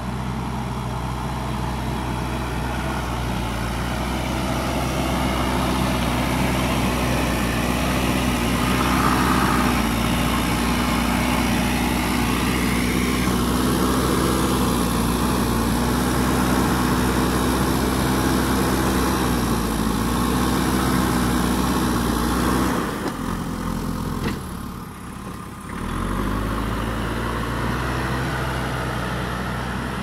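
JCB 3DX Super backhoe loader's diesel engine running steadily while the machine pushes and levels soil with its front bucket, the engine note wavering slightly with the load. The sound drops away briefly about three-quarters of the way through, then the engine comes back.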